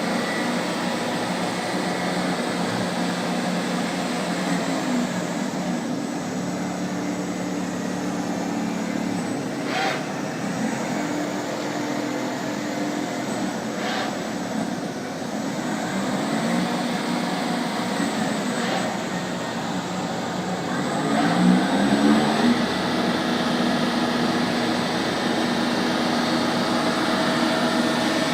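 PINACHO Taurus 260 CNC lathe running: a steady machine hum whose pitch glides up and down several times, with three sharp clicks and a louder swell a little past two-thirds of the way through.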